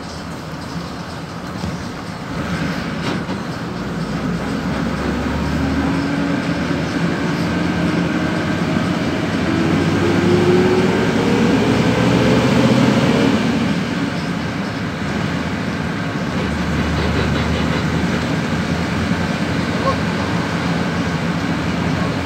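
PAZ 32054 bus under way, heard from inside: engine and drivetrain drone over road noise, with a whine that rises steadily in pitch as the bus speeds up. The whine stops about two-thirds of the way through and the bus runs on more quietly.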